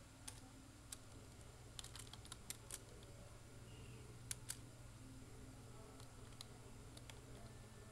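Computer keyboard keys clicking in scattered taps, a handful in the first three seconds and two more a little after four seconds in, over a faint steady low hum.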